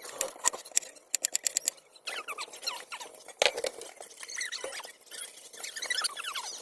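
Potatoes frying in oil on a flattop griddle, crackling and popping with quick clicks and high squeaky chirps, a fast run of pops about a second in and one sharper crack near the middle.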